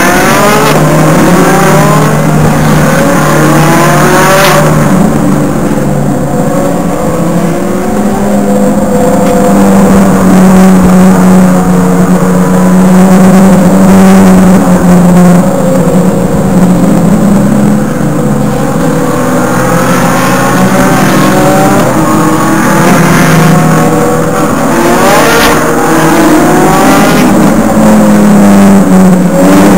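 Engines of several Ferrari race cars running at low speed close by, a steady deep drone. Rising revs are heard as cars pull away and pass, in the first few seconds and again past the middle.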